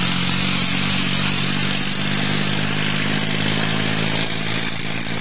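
Diesel tractor engine running steadily at constant speed on a blend of 80% jatropha biodiesel and 20% fossil diesel, with a strong hiss over the engine note.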